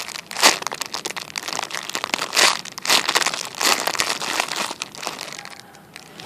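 Plastic packaging of a squishy toy crinkling in irregular bursts as it is handled, dying down near the end.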